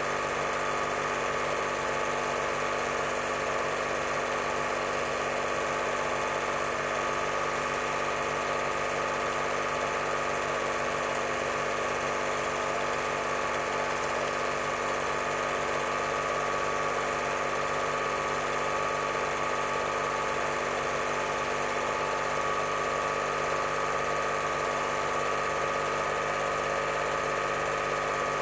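8mm cine projector running: a steady mechanical whirr with a low, regular pulse, unchanged throughout.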